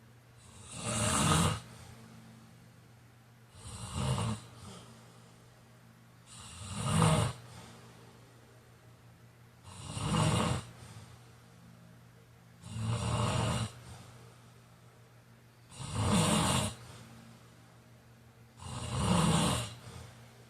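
A sleeping person snoring in a steady rhythm: seven loud snores, each about a second long, one roughly every three seconds.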